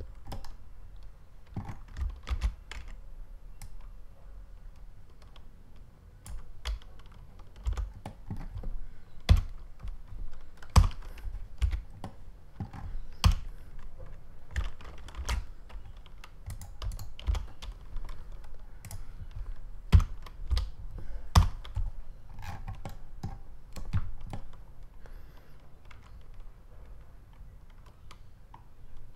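Computer keyboard keys tapped one at a time at irregular intervals, as Blender shortcut keys are pressed during modelling.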